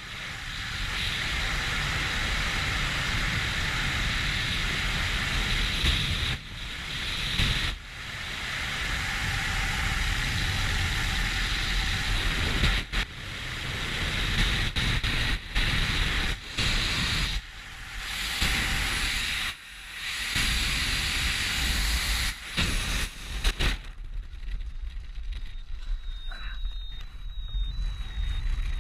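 Freefall wind rushing over a helmet-mounted camera's microphone: a loud, steady rush of air with several brief dropouts. Near the end the rush falls away sharply as the parachute opens, leaving quieter, uneven air noise with a few short high beeps.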